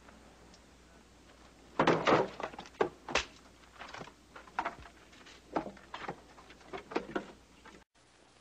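A run of irregular wooden knocks and thuds from barrels and crates being handled and set down, starting about two seconds in, the first few the loudest.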